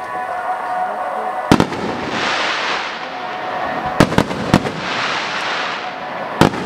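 Aerial fireworks shells bursting: a close double bang about a second and a half in, three bangs in quick succession around the middle, and one more near the end, each followed by a spell of crackling as the glittering stars burn out.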